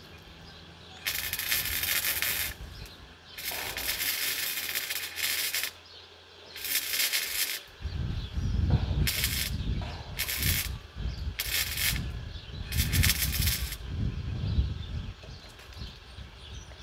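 Titanium Easy-Flux 125 flux-core wire welder's arc crackling and hissing in seven separate bursts of about half a second to two seconds each: short welds and tacks on a steel frame. An irregular low rumble runs underneath from about eight seconds in.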